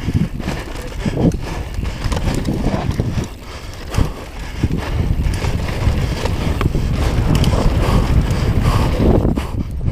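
Mountain bike descending a dirt trail: wind buffeting the camera's microphone over the tyres rolling on dirt and the bike rattling and knocking over bumps, with a sharp knock about four seconds in.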